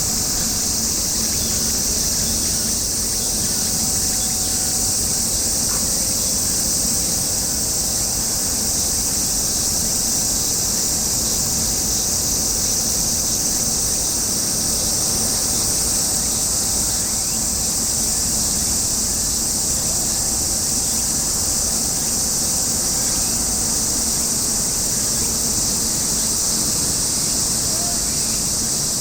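A dense chorus of cicadas singing in a steady, unbroken high-pitched drone, with a faint steady low hum underneath.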